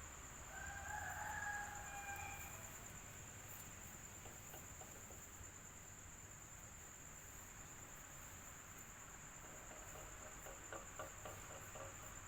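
Electric fan running steadily, a constant noise with a high, even whine. About half a second in, a single drawn-out pitched call lasts about two seconds, and a few short ticks come near the end.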